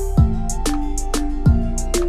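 Background music: a soft plucked-string melody over a regular beat.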